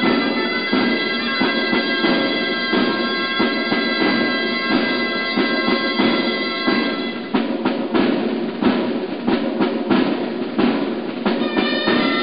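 Gralles (Catalan shawms) playing a nasal, reedy tune over timbal drum beats. About seven seconds in the gralles stop and only the drum strikes go on for a few seconds, then the gralles come back in near the end.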